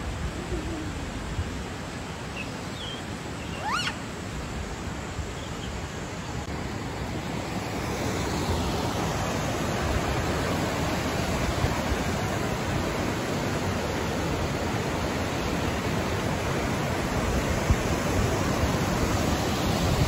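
Steady rush of a fast mountain river, growing louder about eight seconds in. About four seconds in, a single short rising animal call sounds over the water.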